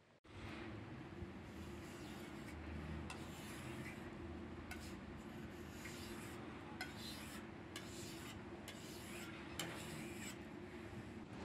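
Kitchen knife being sharpened on a flat whetstone: repeated scraping strokes of the blade across the stone, roughly one a second.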